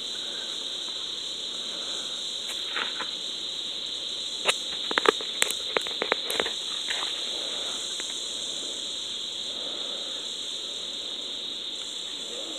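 A steady, high-pitched chorus of crickets or other night insects, with a quick run of about eight sharp pops and clicks about four and a half to six and a half seconds in.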